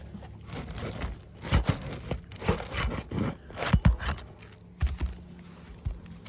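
A hand tool scraping and prying under roof shingles to work a nail loose, in a series of sharp scrapes, crunches and knocks.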